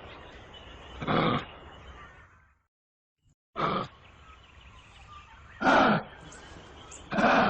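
Kangaroo giving short, loud calls, four in all and each under half a second, spaced one to two seconds apart over a steady background hiss. There is a brief total drop-out between the first and second call.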